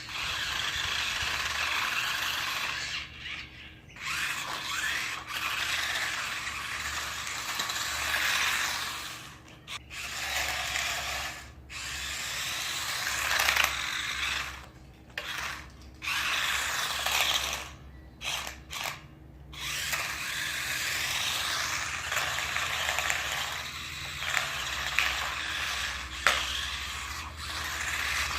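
Sharper Image Spin Drifter 360 toy RC car's small electric motors and plastic gearboxes whirring in repeated bursts of a few seconds, with short pauses between, as the car is driven in stop-start runs.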